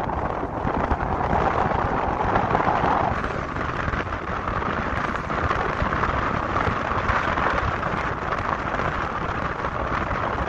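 Wind rushing and buffeting over a phone microphone held out of a moving car's window, over the tyre and road noise of an Infiniti FX35 driving at speed; a steady, loud rush.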